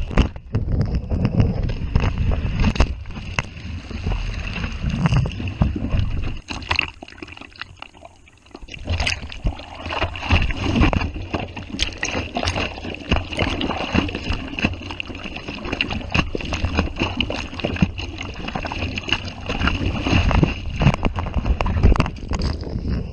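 Ocean water sloshing and gurgling, with many small clicks and knocks through it. The noise drops away for a moment about seven seconds in, then picks up again.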